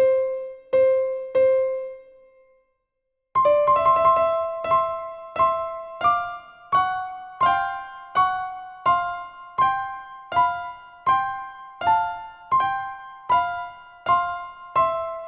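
Instrumental music: keyboard chords struck one after another in an even pulse, each ringing and fading. They stop for about a second, two seconds in, then resume at a slightly quicker pulse.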